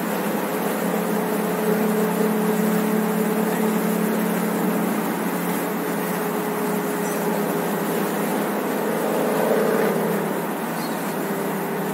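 Car cabin at highway cruising speed: a steady engine drone under constant tyre and wind noise.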